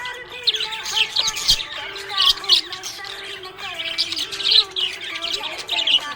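Budgerigar chirping and warbling: clusters of quick, high chirps about once a second, over lower gliding warbled notes.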